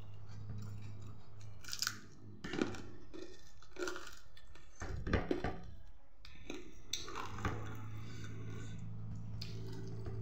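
A person chewing a mouthful of food with wet smacks and a few crunches, clustered between about two and seven and a half seconds in, over a steady low hum.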